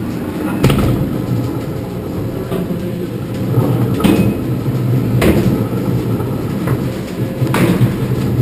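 S&S Free Spin roller coaster car rolling slowly along the steel track out of the station: a steady low rumble with four sharp clunks spread over several seconds.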